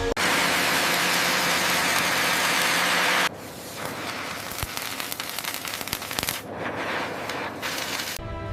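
A loud, steady hiss that cuts off suddenly about three seconds in, followed by quieter crackling with scattered pops.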